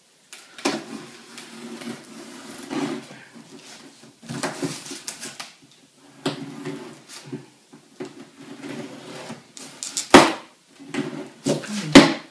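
Packing tape on a cardboard box being slit open with a small blade: irregular scraping and rustling of tape and cardboard, with two sharp, loud cracks near the end.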